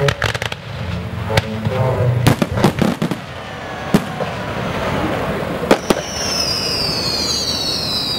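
Fireworks display: sharp bangs of shells bursting, a quick cluster of them a couple of seconds in and a close pair later, over the display's music. Near the end, high whistling tones glide slowly downward.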